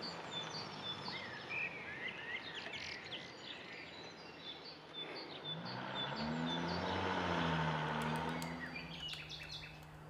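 Woodland birds calling and singing, with one short high chirp repeated about twice a second. From about five seconds in, a low engine drone swells to be the loudest sound and fades again near the end.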